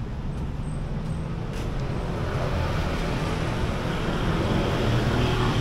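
Road traffic with a motor vehicle's engine running and growing gradually louder as it draws near.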